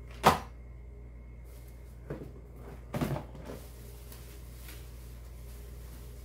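Cardboard packaging being handled during an unboxing. A sharp knock comes just after the start, a softer knock about two seconds in, and a short cluster of thumps and rustling around three seconds in as a cardboard box is moved and bubble wrap is pulled off.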